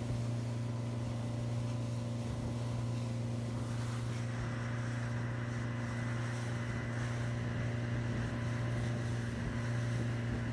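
Motorboat engine running steadily under way, a constant low hum, with a rush of wind and water over it that grows louder about four seconds in.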